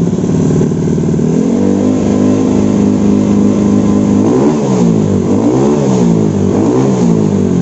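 Honda Beat scooter engine, built to 125cc spec, running through an aftermarket Tsukigi VND-type racing exhaust. It holds raised revs for about four seconds, then the throttle is blipped up and down several times.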